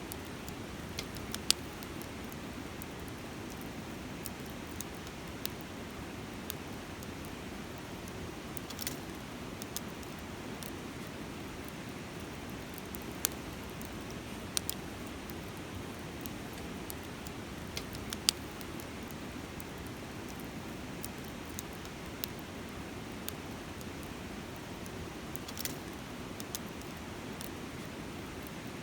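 Wood campfire crackling, with sharp irregular pops, over the steady rushing murmur of a river.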